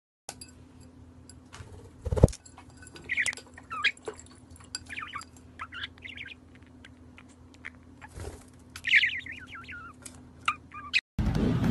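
Small white parrot chirping in short, scattered bursts, with light clicks and two sharp knocks, the louder one about two seconds in and another about eight seconds in.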